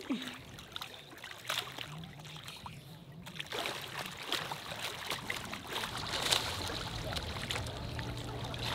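Water sloshing and trickling with scattered small splashes, as from a swimmer moving through choppy water. A faint low hum creeps in near the end.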